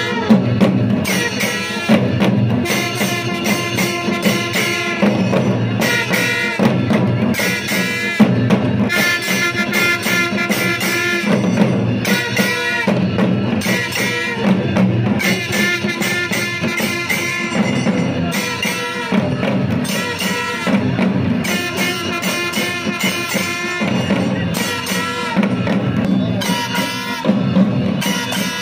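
Kailaya vaathiyam ensemble playing: long curved brass horns blow loud held notes over a steady beat of large barrel drums.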